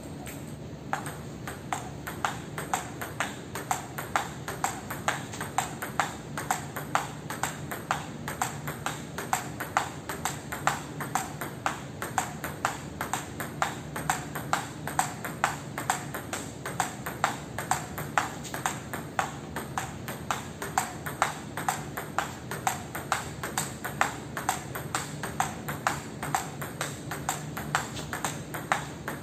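Table tennis ball clicking off the rubber-faced paddles and the table in one long unbroken rally, about two hits a second, starting about a second in.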